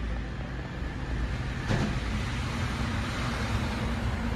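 Steady hiss of heavy rain, with a single light knock about a second and a half in.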